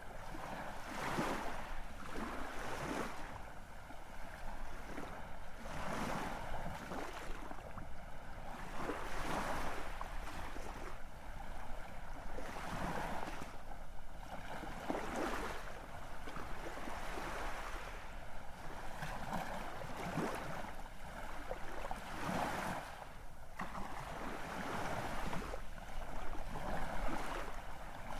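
Sea waves breaking and washing in, a continuous rushing noise that swells and eases every couple of seconds.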